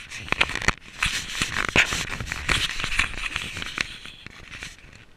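Rustling, crackling handling noise close to the camera's microphone: a dense run of scratches and clicks that swells about a second in and fades near the end.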